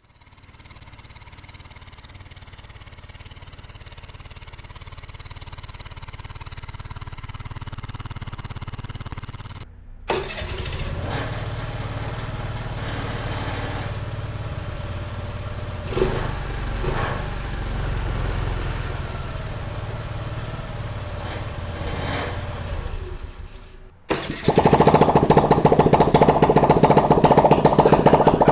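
Honda Navi's small single-cylinder engine running through its exhaust, in three separate recordings. The first is a steady low idle that grows louder. The second is louder, with a few short blips of throttle. The last is much louder, with a rapid, choppy exhaust beat.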